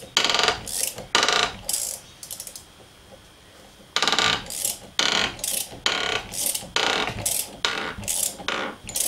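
Socket ratchet on a 19 mm box spanner clicking in quick short strokes, about two a second, with a pause of about two seconds near the middle. It is winding a long threaded bolt down against a pusher washer, pressing the old spindle bearing out of a mini lathe's headstock casing.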